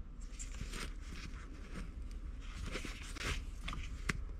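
Old leather shift boot being peeled and pulled off its plastic frame by hand: rustling and scraping of leather against plastic, denser about two-thirds of the way in, with a sharp click near the end.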